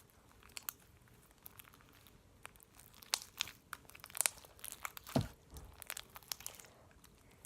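Sticky homemade glue slime being kneaded by hand: irregular small wet clicks and crackles as it stretches and pulls off the fingers, with one low thump about five seconds in.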